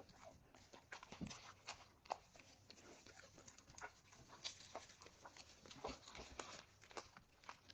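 A dog eating: irregular soft crunches, smacks and clicks of chewing, a few every second.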